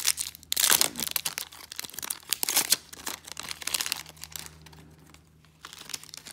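Foil Yu-Gi-Oh! booster pack wrapper being torn open and crinkled in the hands. It is loudest in the first few seconds, then thins to lighter rustles and a few clicks.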